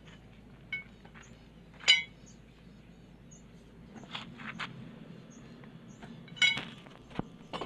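Irregular sharp metallic clinks and knocks over a low steady hum, the loudest about two seconds in and again near six and a half seconds, from a Sino truck gearbox with a noise problem.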